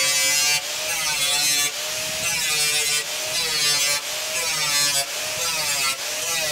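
Angle grinder with a thin cutting disc cutting into sheet steel. Its motor whine dips in pitch and the hissing cut swells each time the disc bites, about once a second, then recovers as it eases off.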